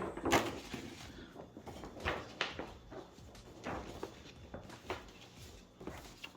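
Paper and cardboard being handled: a folded poster and the LP box packaging rustling and shifting in several short bursts.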